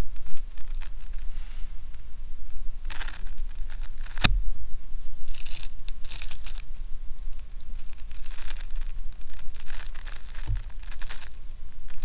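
Crackling, velcro-like rasping of the tiny hooked barbules that lock overlapping pigeon and barn owl flight feathers together, as the feathers are pulled apart, heavily amplified. It comes in irregular bursts, with a sharp click about four seconds in, over a steady low hum.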